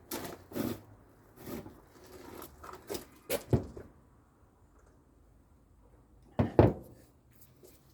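Short rustling and handling noises of a paper napkin being pulled off and used, in separate bursts, the loudest about six and a half seconds in.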